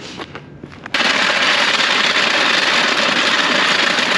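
Loud, steady rush of air from an electric power tool, switched on abruptly about a second in, used to clear out dust.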